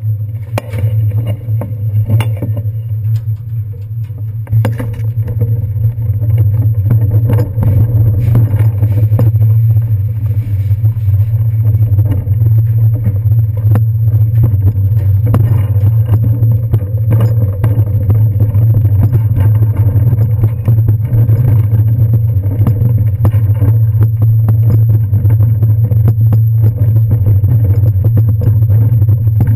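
Bicycle being wheeled along a walkway, heard through its handlebar-mounted camera: a steady low rumble that grows louder a few seconds in, with light rattles and clicks.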